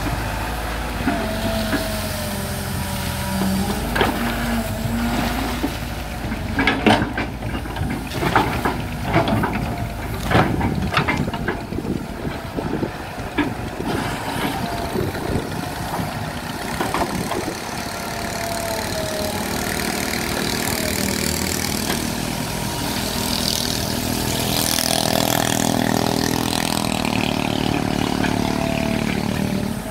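Caterpillar E120 hydraulic excavator running as it swings and digs, with its diesel engine going under load and a hydraulic whine. Sharp knocks and clatters come through the middle, and the engine works harder near the end as the bucket lifts a load of mud.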